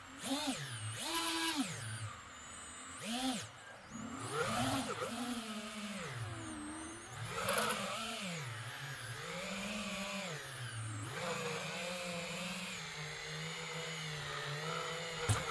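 Brushless motors and propellers of a 5-inch FPV quadcopter, heard from its onboard camera, whining with the pitch rising and falling again and again as the throttle is worked, then holding steadier toward the end. A few sharp knocks come right at the end.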